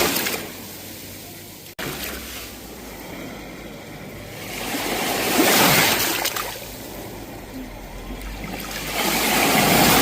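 Sea waves breaking on a shore: the surf swells to a peak and falls away every four to five seconds, the wash rising about five seconds in and again near the end. There is a brief break in the sound just under two seconds in.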